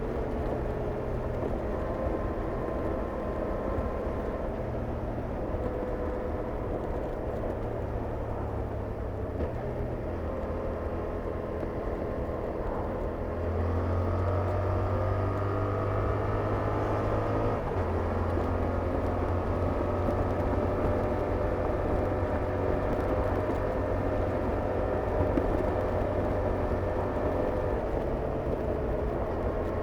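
Yamaha R7's parallel-twin engine and stock exhaust under way. About halfway through it gets louder and rises in pitch for a few seconds as the bike accelerates, then the pitch drops back.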